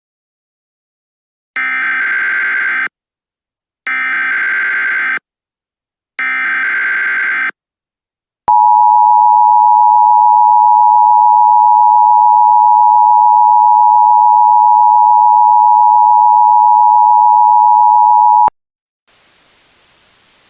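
Emergency Alert System tornado-watch alert: three short bursts of screeching digital header data about two seconds apart, then the EAS two-tone attention signal, a steady high tone held for about ten seconds that cuts off suddenly. A faint hiss follows near the end.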